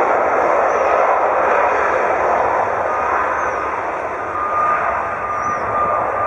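Jet engine noise from an Airbus A330-200's two Rolls-Royce Trent 772B-60 turbofans at high thrust on the takeoff roll: loud and steady, fading slowly as the aircraft moves away. A steady whine joins about four seconds in.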